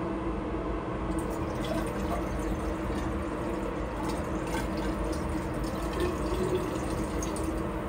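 Water poured from a bottle into a glass graduated cylinder, over a steady background hum.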